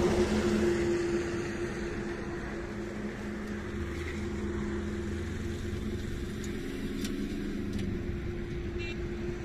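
An engine running steadily with a low hum. A louder rush of noise fades over the first second or so.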